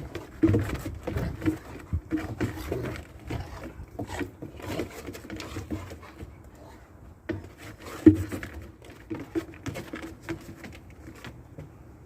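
Dogs playing in snow: an irregular patter of paws and scuffling, with one louder thump about eight seconds in.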